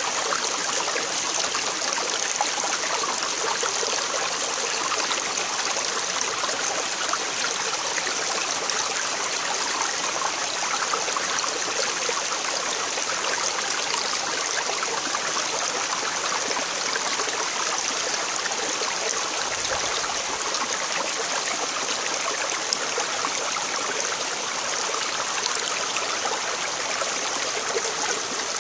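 Shallow rocky creek running over stones and small cascades: a steady rush and splash of water.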